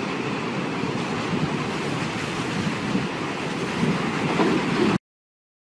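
Steady rushing, wind-like noise of an animated intro's sound effect, swelling a few times, that cuts off suddenly about five seconds in.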